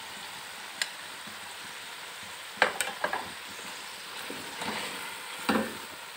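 Freshly added chopped green capsicum and chicken curry sizzling in a metal pot as a wooden spoon stirs them, a steady hiss broken by a few sharp knocks of the spoon against the pot.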